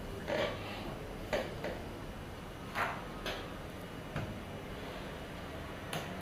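A handful of scattered soft knocks and rustles, about six in all and irregularly spaced, from a person shifting in a chair and putting his arms down on a wooden desk, over a low steady room hum.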